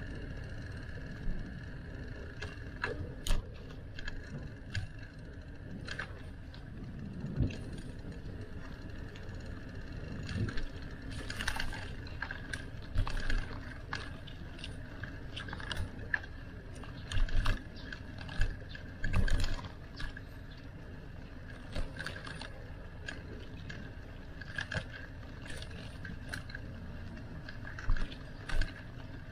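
Bicycle in motion: a steady rumble of tyres and wind with scattered rattling clicks from the bike, a cluster of the loudest ones a little past the middle.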